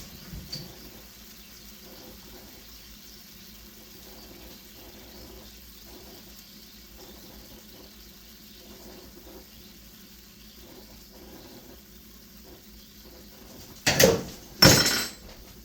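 Faint steady bubbling of a soy-hoisin sauce simmering in a pan, with light scraping of a spoon peeling ginger skin. Near the end, two loud knocks.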